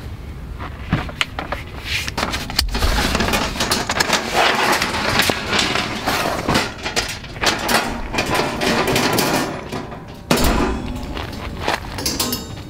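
Folding steel wire-mesh field racks being handled and unfolded, the metal grids clattering and clicking against each other, with rustling of cloth. There is a louder thump about ten seconds in.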